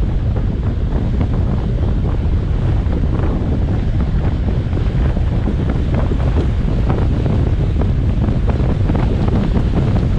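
Wind buffeting an action camera's microphone on a fast bicycle descent: a loud, steady low rumble with a rough, gusty flutter.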